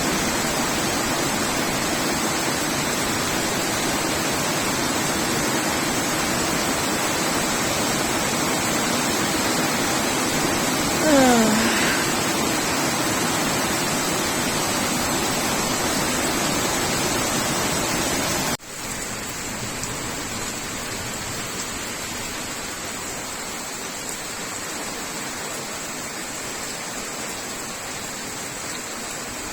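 Heavy rain pouring down in a steady hiss. About eleven seconds in, a brief rising squeal cuts through it, and later the rain abruptly drops to a somewhat quieter level.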